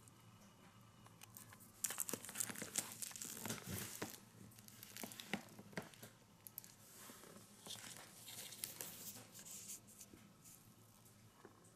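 Fireworks being handled and shifted about, their paper wrappings crinkling and rustling in irregular bursts, loudest about two seconds in.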